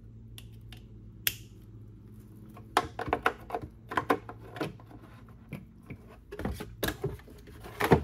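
Irregular plastic clicks and knocks of bulb sockets being pushed and twisted into a car's taillight housing during a bulb change. The clicks are sparse at first and come thicker from about three seconds in, over a steady low hum.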